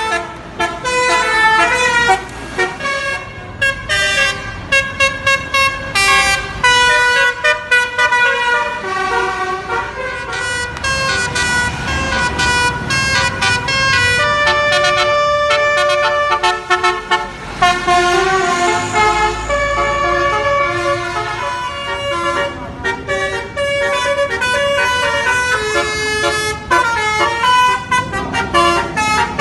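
Basuri telolet bus horns playing quick multi-note melodies: a rapid run of short horn notes that step up and down in pitch, one after another.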